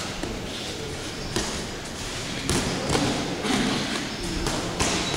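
Boxing sparring: a handful of irregular dull thuds from gloved punches landing and feet moving on the ring canvas.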